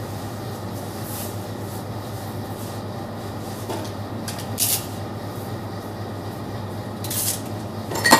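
Steady low mechanical hum of running kitchen machinery, with two short hissing rustles around the middle and a sharp click or knock just before the end.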